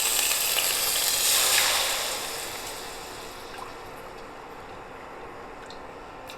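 Water poured into a hot kadai with jaggery, hissing loudly for about two seconds and then settling to a quieter steady sizzle.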